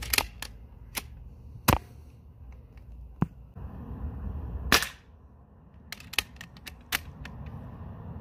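Diana Stormrider .22 pre-charged pneumatic air rifle shooting: a string of sharp cracks and clicks. The loudest come about two seconds in and again near five seconds, with a quick cluster of clicks around six to seven seconds.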